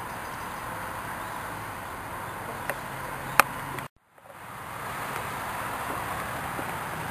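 Outdoor background noise: a steady, even hiss with no voices. A sharp click comes a little past three seconds in, and the sound drops out briefly near four seconds before fading back in.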